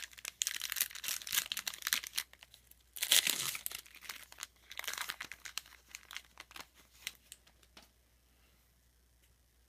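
Trading-card pack wrapper being torn open and crinkled, in bursts, loudest a little after three seconds in. A few light rustles and clicks follow as the cards are handled.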